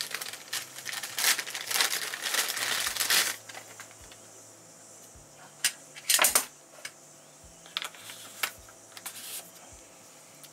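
Plastic packaging crinkling and rustling for about three seconds as the lens hood is unwrapped, then a scattered series of sharp clicks and taps from the hood being handled, the loudest about six seconds in.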